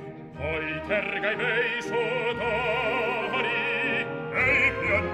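Operatic male singing with wide vibrato, accompanied by orchestra, in a bel canto duet for baritone and bass. Sound dips briefly about half a second in, then the singing resumes.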